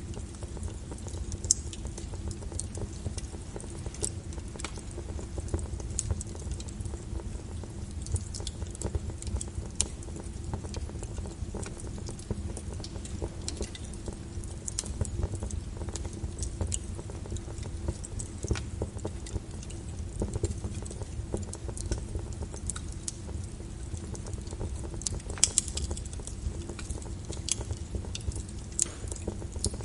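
Wood fire burning in a fireplace: a steady low rumble of the flames with irregular sharp crackles and pops throughout, a few louder pops standing out.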